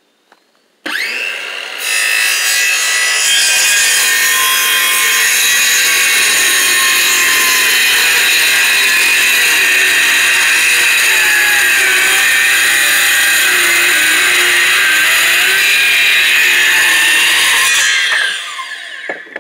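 Makita cordless circular saw spinning up and making one long straight cut through a white-faced board, running steadily under load, then spinning down near the end.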